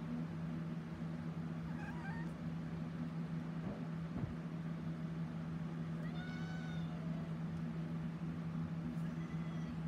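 A kitten meowing: one clear, drawn-out meow about six seconds in, with fainter calls around two seconds in and near the end, over a steady low hum.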